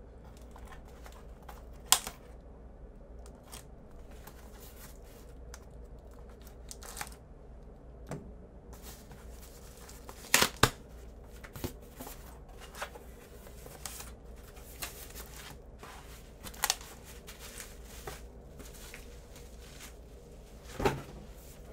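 A cardboard record mailer being cut open and handled: scattered crackling and tearing of cardboard and packaging, with a few louder sharp snaps spread through.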